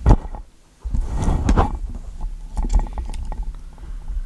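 Handling noise from a camera being picked up and repositioned: a knock right at the start, then a couple of seconds of rubbing and rustling with a low rumble and scattered clicks.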